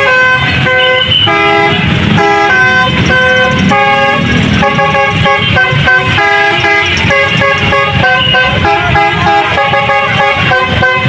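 Telolet horn of a Putra Pelangi bus: a set of multi-tone horns playing a fast tune of short notes that jump from pitch to pitch without a break.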